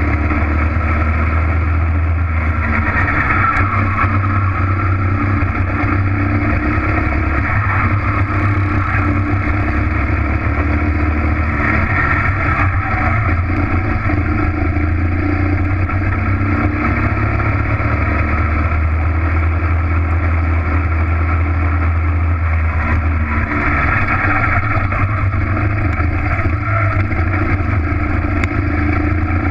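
Racing kart engine running hard, heard from a camera mounted on the kart, with a steady loud drone and a note that rises and falls a little through the lap.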